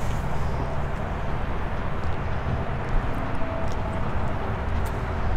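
Steady outdoor background noise: a low rumble under a soft hiss, with no distinct event.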